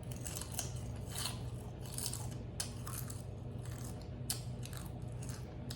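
Close-miked chewing of a turkey and spinach lettuce-style wrap: a string of short, moist, crunchy chewing sounds, roughly one or two a second, over a steady low hum.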